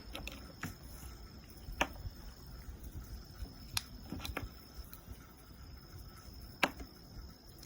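Crickets trilling steadily as one high, thin tone, with a few sharp clicks and taps scattered over it, the sharpest late on.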